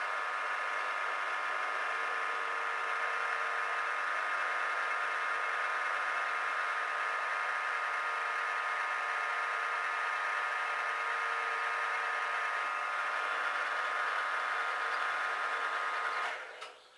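Geared-head mill-drill running its spindle with a steady gear whine, a centre drill in the chuck over an aluminium plate; it runs down and stops near the end.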